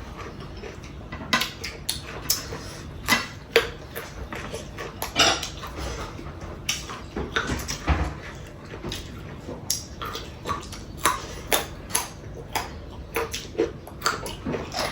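Irregular clinks and taps of dishes and utensils during a meal of curry and rice, sometimes several in a second.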